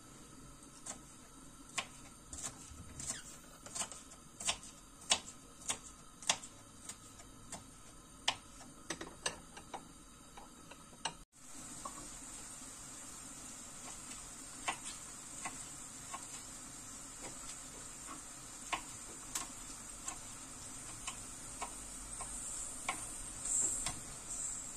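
Kitchen knife chopping green peppers on a wooden cutting board: quick, sharp taps of the blade on the board, several a second, stopping about halfway through. Then sparser, softer cuts through peeled tomatoes, over a steady high hiss.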